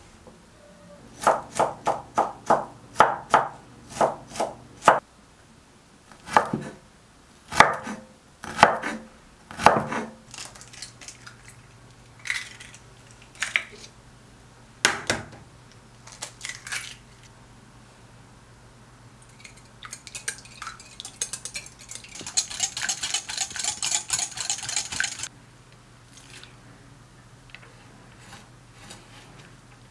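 Kitchen prep sounds: a knife chopping on a wooden cutting board in runs of quick strokes, and eggs in a glass bowl beaten with a few seconds of rapid clicking against the glass.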